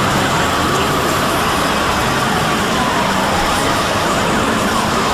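Dense, steady din of many video soundtracks playing over one another at once, a jumble of voices, music and effects, with a slowly wavering tone running through it.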